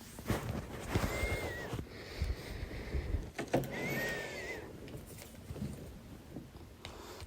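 A woman's loud hiccups: sharp gulping clicks, two of them carrying a short, squeaky high-pitched note, about a second in and again about three and a half seconds in, with breathing between.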